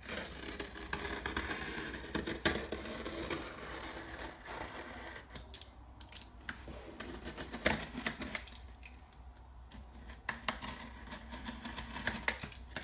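Cardboard shipping box being opened by hand: scraping and rustling of cardboard and tape, broken by many sharp clicks and knocks.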